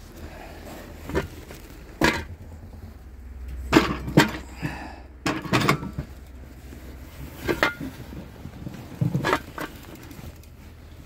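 Irregular knocks and clatters, about nine spread over several seconds, of pots and food containers being handled while dog food is readied for warming.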